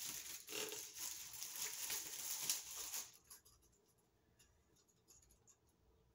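Thin plastic crinkling and rustling as disposable plastic cups are handled. It runs for about three seconds and then stops.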